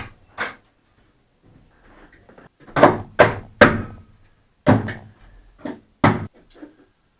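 A series of sharp knocks and thuds, about nine in irregular groups: two near the start, three in quick succession about three seconds in, then four more.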